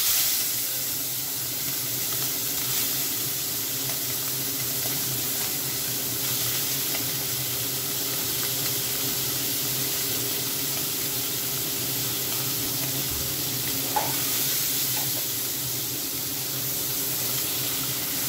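Small tangra catfish frying in a little hot oil in a kadai: a steady sizzle that starts abruptly as the fish go into the hot pan. A single short click about two-thirds of the way through.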